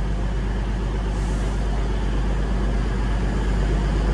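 Diesel multiple-unit train engines idling at the platform: a steady low throb, with a short hiss of air about a second in.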